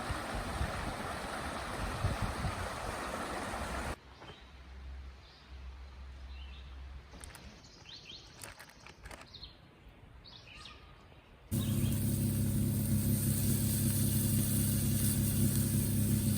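A steady rushing noise for the first few seconds, then a quiet stretch with birds chirping, then it cuts to a vehicle engine running steadily.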